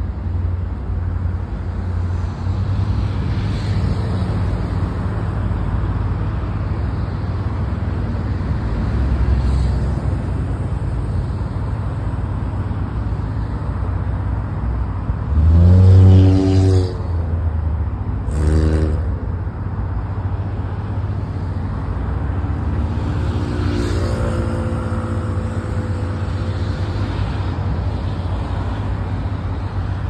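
Steady low rumble of harbour noise over the water, broken about halfway through by two blasts of a low-pitched ship's horn, a longer one and then a short one. A fainter horn tone follows a few seconds later.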